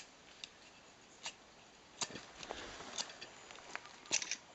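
A run of short sharp scrapes or clicks, about one a second with a quick pair near the end, from repeated attempts to light tinder card for a Ghillie kettle's fire; the tinder has not caught yet.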